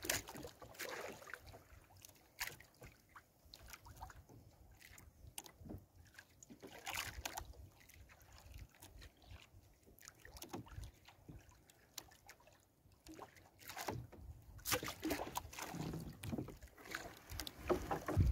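A wet gill net being hauled hand over hand into a wooden outrigger canoe and fish picked out of it: irregular small knocks, clicks and rustles of net and hands against the hull. Low wind rumble on the microphone builds near the end.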